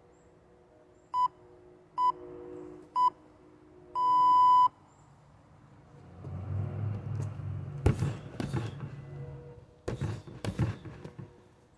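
Electronic round timer counting down: three short beeps about a second apart, then one longer beep that signals the start of the round. A couple of seconds later come several sharp thuds of strikes landing on a freestanding heavy bag.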